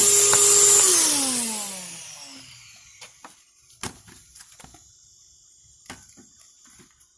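Shop vacuum blowing air through the engine air filter, a loud hiss with a steady whine. About a second in it is switched off and its motor winds down, the whine falling in pitch as the noise fades. Then a few light clicks and knocks.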